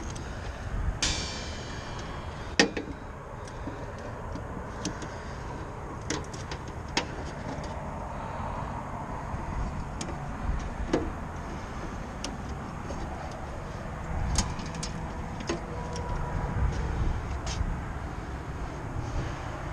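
Scattered clicks and metallic clinks of hand tools and wiring being handled at an HVAC unit's electrical panel, with a rattle about a second in and a sharp click about two and a half seconds in, over a steady low rumble.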